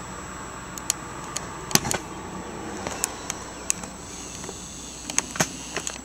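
About a dozen short, sharp clicks and light knocks, scattered irregularly, over a steady hiss with a faint high whine.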